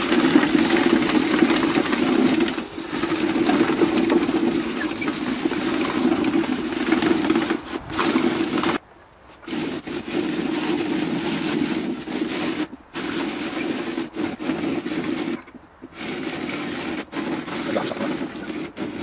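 Hand-cranked beet shredder chopping windfall apples: the toothed drum turns steadily and grinds the fruit pressed into its hopper, with a steady churning noise that stops briefly three times.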